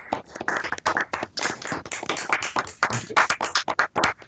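Applause: hands clapping in quick, irregular claps over a video call's audio, stopping right at the end.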